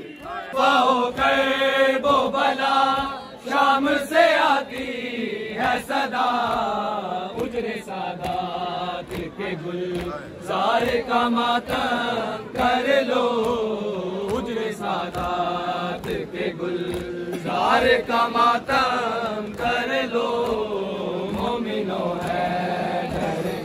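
Male voices chanting a noha, a Shia mourning lament, in long drawn-out sliding phrases.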